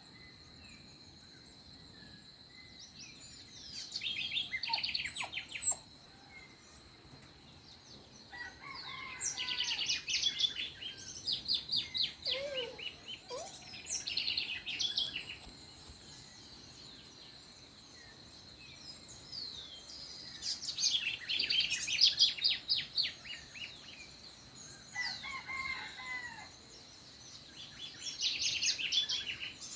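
Dawn chorus of songbirds: bursts of rapid chirps and trills that come and go every few seconds, over a faint steady high tone.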